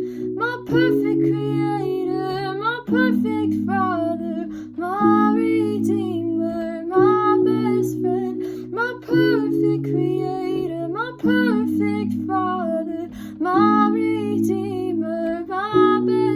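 A woman singing a slow worship song over acoustic guitar chords that change about every two seconds.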